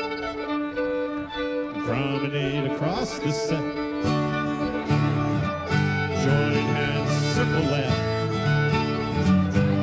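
Live old-time string band playing a reel, with a fiddle carrying the tune over guitar and a steady bass line.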